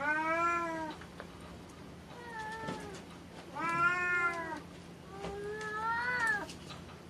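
A cat meowing four times in a row, each meow lasting up to about a second.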